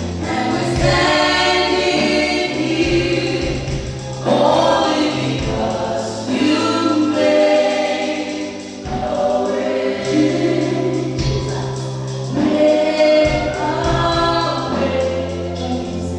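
Church choir singing gospel music, several voices together over held low accompanying notes.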